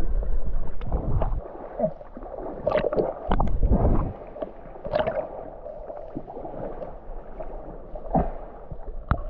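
Shallow water sloshing and gurgling around a camera held at the surface as it dips in and out, with scattered splashes. Heavy low rumbling buffets come in the first second and a half and again around three to four seconds in.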